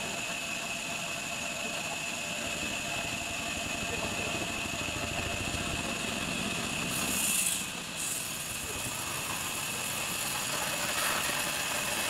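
Large vertical band saw in a sawmill running steadily with a high-pitched whine over its motor hum. There is a brief hiss about seven seconds in.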